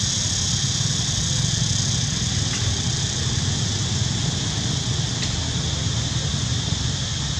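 Steady outdoor background noise: a low rumble with a steady high-pitched hiss above it, and no distinct calls or voices.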